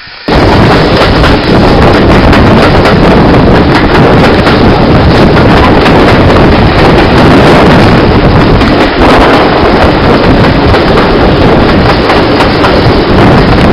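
Heavy wind buffeting the microphone held out of a moving train's carriage window, starting suddenly and staying loud, with the train's running noise underneath.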